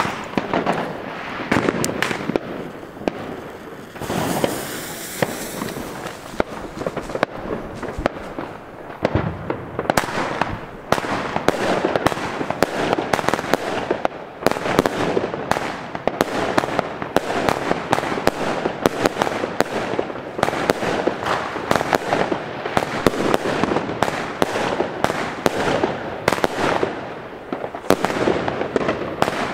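Rubro Heavy Legend 25-shot consumer firework cake firing: a long run of sharp launch bangs and small crackling bursts in the air, coming thick and fast from about ten seconds in.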